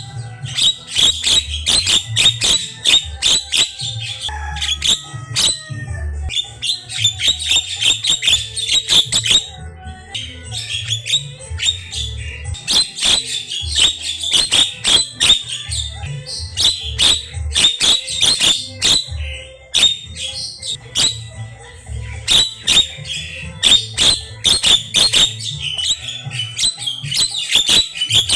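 Javan myna singing a fast, harsh chattering song of rapid clicks and short whistled notes, with brief pauses about ten and twenty seconds in.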